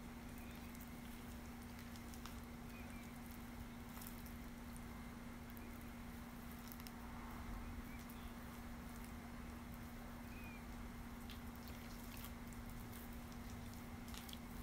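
Faint wet squishing and patting as henna paste is worked into hair by hand, over a steady low hum.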